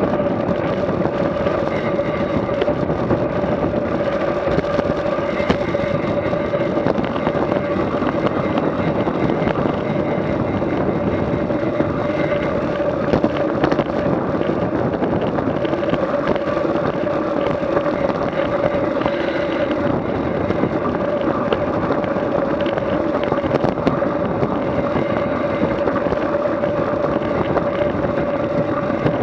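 A vehicle engine running at a constant speed, holding one steady note over a continuous rushing noise.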